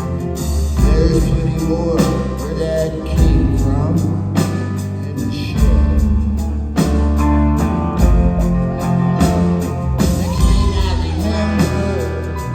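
Live rock band playing loudly, with steady bass and drum hits under a sung vocal line.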